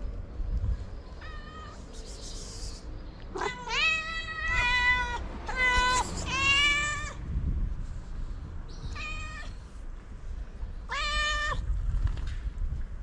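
Street cat meowing loudly again and again: one short meow, then a run of four or five longer meows in the middle, then two more spaced out near the end.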